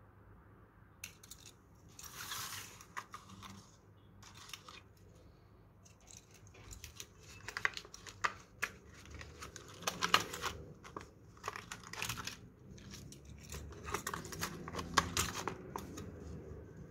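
Clear plastic blister packaging crinkling and clicking as a die-cast toy truck is pressed back into it, in irregular short crackles that come thickest in the second half.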